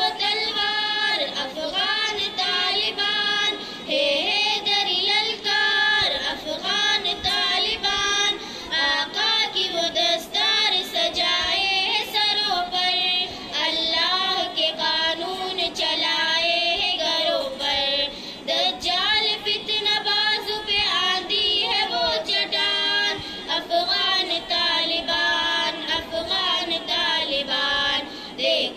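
A young girl singing a song unaccompanied into a microphone, a melody of held notes broken by short pauses for breath.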